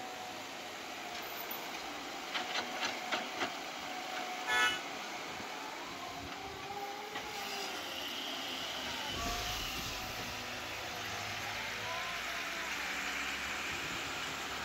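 Caterpillar 312B hydraulic excavator running as it digs and swings a load to a dump truck, its engine and hydraulic note rising and falling. A quick run of five clicks comes about two and a half seconds in, and a short pitched toot about four and a half seconds in is the loudest sound. A low rumble joins from about nine seconds in.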